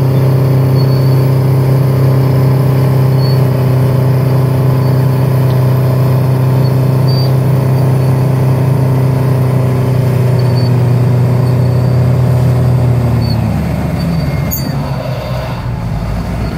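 Diesel engines of a Cat D6H dozer and a Terex TS-14 scraper running hard under load while the scraper bowl is push-loaded: a loud, steady, deep drone. About three-quarters of the way through, the pitch falls and the sound gets quieter as the engines ease off, and a short click follows.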